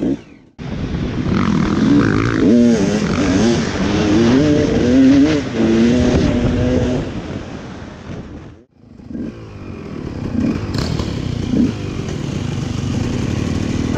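Enduro dirt bike engine revving up and down in quick bursts, then running more steadily after a brief drop-out about eight and a half seconds in.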